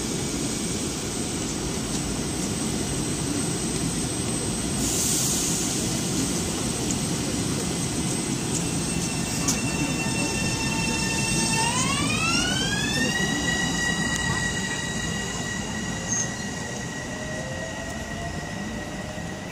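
Long Island Rail Road electric multiple-unit train pulling out of the station: steady running noise under a constant high whine, with a brief hiss about five seconds in. Just past halfway, the traction whine climbs sharply in pitch as the train accelerates, then holds steady while the train draws away.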